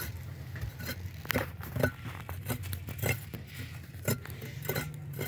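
Irregular clinks, taps and scrapes of hand tools at work, a dozen or so sharp knocks scattered through, over a low steady hum.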